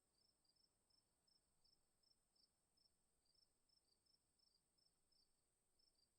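Near silence, with only a faint steady high whine and faint high chirps repeating about three times a second.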